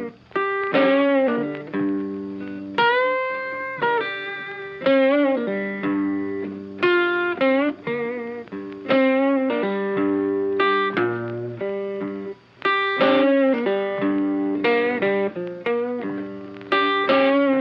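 Instrumental background music: a guitar picking out a melody of separate plucked notes, some of them bent in pitch, over a steady lower accompaniment.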